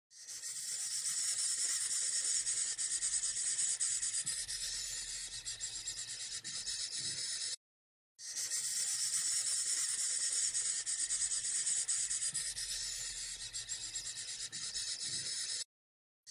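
Snake hissing sound effect: a long, steady, raspy hiss that stops dead after about seven and a half seconds, followed by a short silence and then the same hiss played again.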